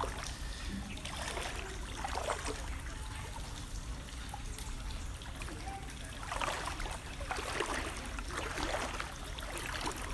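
Floodwater sloshing and swishing as someone wades through it, a few soft swishes coming in clusters of strokes, over a steady trickling background.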